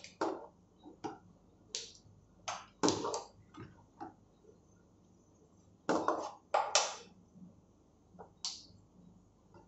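Long steel ladle scraping and knocking in a wok of thick dal, with dal sloshing as it is scooped and poured into a ceramic bowl. The sounds come in short, irregular strokes, the loudest about three seconds in and again around six to seven seconds.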